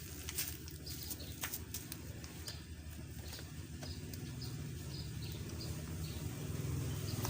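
Tasco SP2000 thermal fogging machine being started: a low pulsing rumble builds and grows louder from about halfway through, over a series of light, regular clicks.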